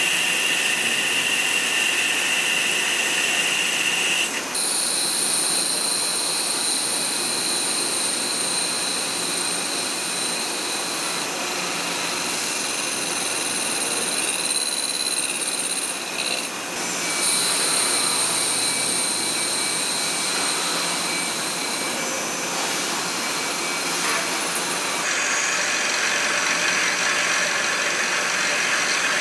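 Hwacheon C1 CNC turning center rough-turning the outside diameter of an AL 6061 aluminium part, with a steady machining noise under high whining tones. The tones jump to new pitches several times as the cut goes on, and the machine switches to a small end-mill cut near the end.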